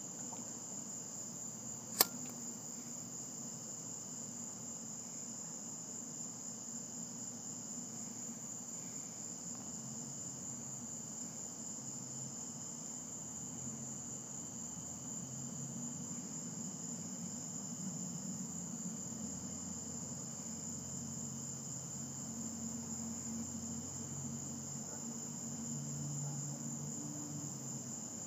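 Crickets chirping steadily in a continuous high-pitched chorus, with one sharp click about two seconds in.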